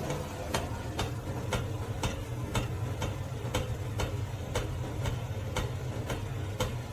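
Regular ticks, about two a second, over a steady low hum.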